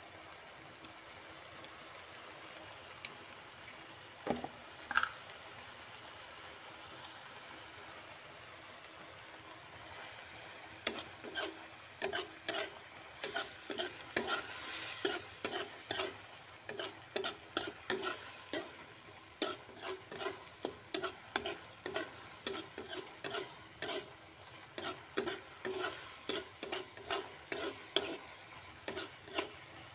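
Shrimp in oyster sauce sizzling and bubbling in a wok. From about eleven seconds in, a utensil scrapes and knocks against the wok in quick regular strokes, about two a second, as the dish is stirred.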